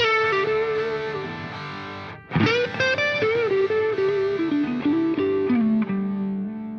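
Background music led by a distorted electric guitar playing a melody. It breaks off briefly about two seconds in, restarts with a phrase that steps downward, and settles on a low held note that starts to fade near the end.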